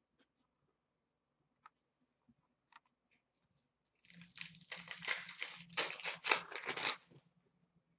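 Foil wrapper of a hockey card pack being torn open and crinkled, about three seconds of crackling that starts about four seconds in, after a few faint clicks.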